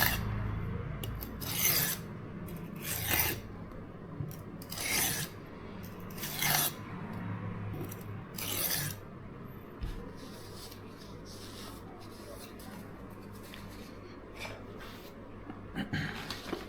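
Steel knife blade scraped across the coarse side of an oil-soaked Norton 37C combination whetstone in five long strokes, about one every one and a half to two seconds. The strokes then turn fainter and sparser.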